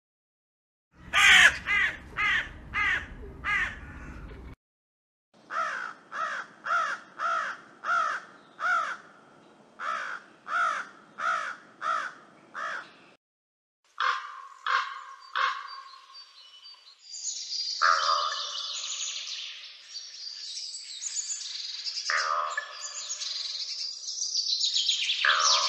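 Crows cawing: runs of harsh caws about two a second, with short silent gaps between the runs and a low rumble under the first run. From about 14 seconds in, many crows call at once in a dense, overlapping clamour.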